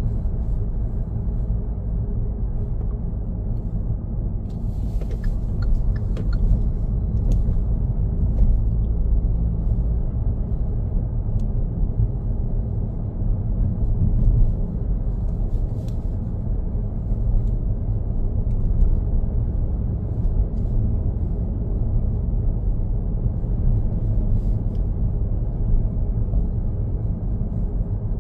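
Car driving at road speed: a steady low rumble of engine and tyre noise, with a few faint clicks about five and sixteen seconds in.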